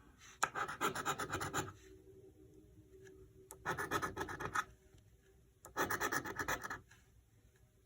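Scratch-off lottery ticket being scratched in three short bursts of rapid strokes, each about a second long, with pauses between them as the number spots are uncovered.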